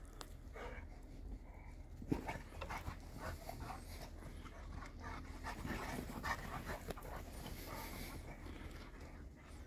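Large dogs, a Boerboel and a Serbian Defense Dog, panting in quick, irregular breaths as they play-wrestle. One sharp, louder sound comes about two seconds in.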